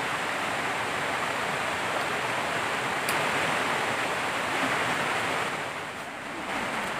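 Steady rushing of river water, easing slightly near the end, with a small click about three seconds in.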